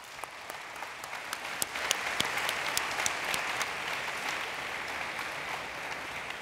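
Audience applauding, the clapping swelling over the first couple of seconds and slowly dying away near the end.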